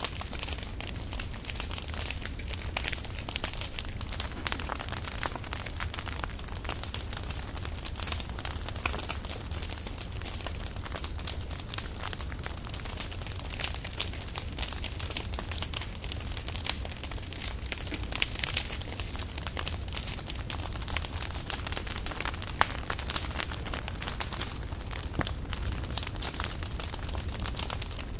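Large open fire burning: dense, continuous crackling and popping over a steady hiss, with a low rumble beneath and a few sharper pops.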